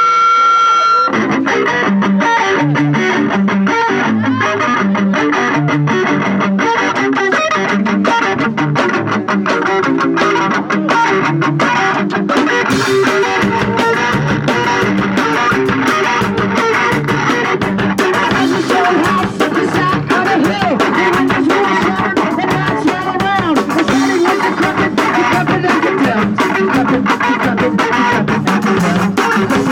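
Punk rock band playing live: electric guitar and bass with drums, the full band coming in about a second in after a held guitar note.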